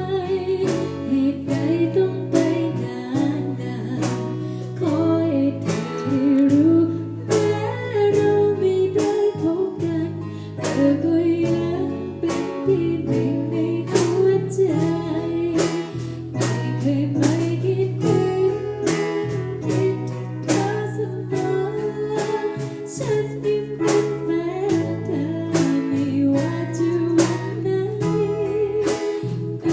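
A female voice sings a luk thung song, with vibrato on held notes, over a backing track of guitar, bass and a steady drum beat.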